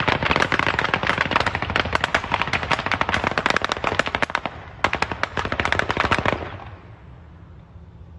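Sustained rapid automatic gunfire from several weapons in two long runs of shots, broken by a short pause a little before five seconds, then stopping about six and a half seconds in.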